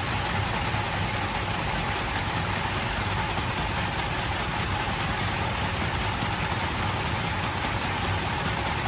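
Factory metalworking machinery running steadily, with a rapid, even clatter over a constant hum.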